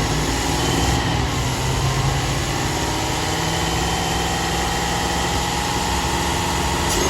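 2017 Chevrolet Traverse's 3.6-litre V6 running at a steady idle, just started after a battery disconnect to reset the ECU.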